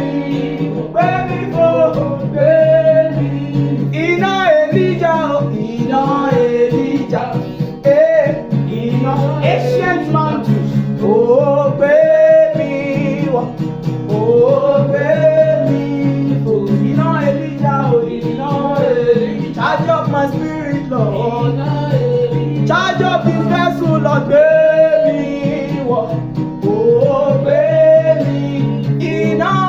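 Gospel prayer chorus: a voice sings a short Yoruba refrain over steady instrumental accompaniment, the same phrase coming round about every four seconds.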